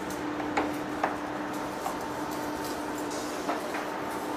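Heavy-duty face lathe running with a steady hum, and a few sharp metallic clinks over it.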